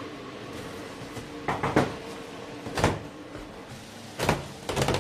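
A few sharp knocks and clatters, like things being handled or a door or cupboard closing, over a steady hum; the knocks come in small clusters about one and a half, three and four and a half seconds in.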